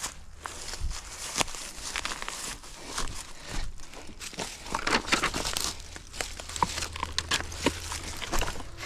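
Irregular crackling and rustling of twigs and dry vegetation as an orienteer moves through forest undergrowth, without the even rhythm of running strides.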